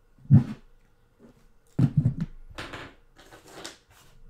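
Desk items being handled and set down: a few dull knocks followed by rustling, as one product is put away and the next is picked up.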